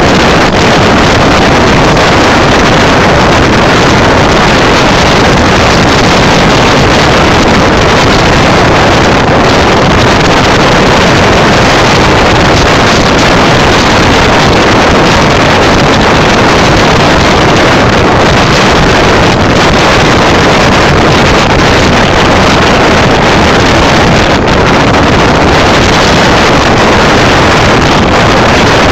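A moving sleeper train: its running noise mixed with a loud, steady rush of wind buffeting the microphone.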